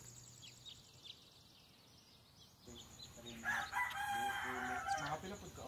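A rooster crows once, a single call of nearly two seconds starting about halfway through.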